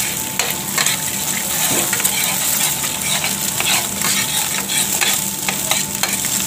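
An egg sizzles in hot oil in a stainless steel frying pan while it is scrambled with a metal spoon. The spoon scrapes and clicks against the pan irregularly, over a steady frying hiss.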